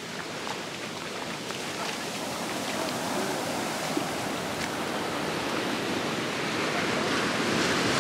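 Sea surf washing onto a sandy beach: a steady rushing that slowly grows louder.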